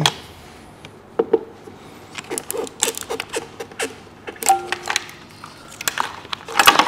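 Irregular small clicks and light rattles of a hand tool working on a bracket and the plastic wiring-loom fittings on top of a Kia/Hyundai V6 engine, with a brief squeak about halfway through.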